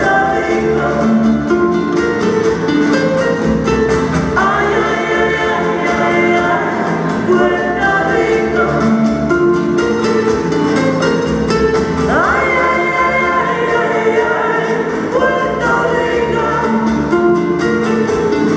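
Song with singing over a steady beat, with a sung note sliding upward about four seconds in and again about twelve seconds in.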